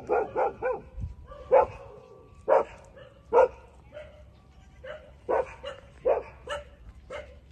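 Young puppies whimpering and yipping in short high cries: a quick run of about four at the start, then single cries roughly a second apart, softer in the second half.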